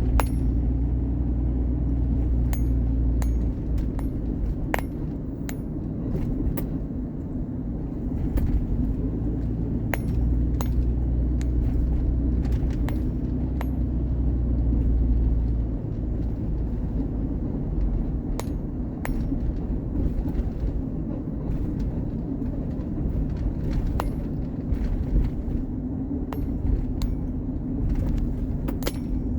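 Car driving, heard from inside the cabin: a steady low engine and road rumble with frequent light clinks and rattles of loose things. The deepest part of the rumble eases a little past halfway.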